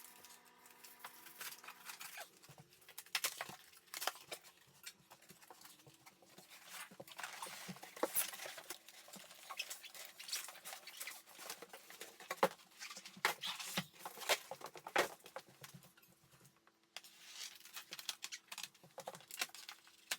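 Speaker shipping box being unpacked: irregular rustling, scraping and crinkling of cardboard and packing material, with scattered sharper knocks and tears.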